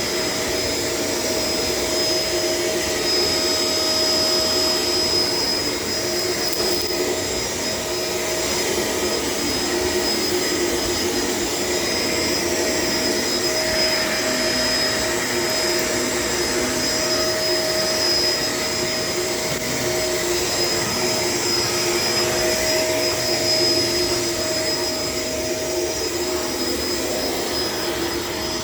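Shark LA702 Lift-Away upright vacuum cleaner running steadily while vacuuming the floor, a constant motor whine over rushing air.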